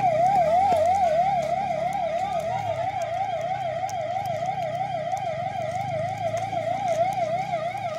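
Background music: a steady warbling electronic tone, like a slow siren, wavering up and down several times a second over low synth notes that change in steps.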